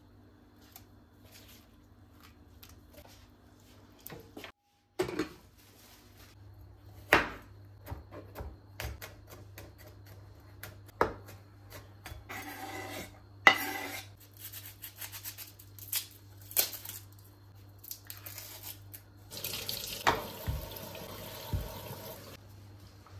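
Kitchen work sounds: dishes and utensils clinking and knocking against each other at irregular intervals, with a tap running for a couple of seconds near the end, over a steady low hum.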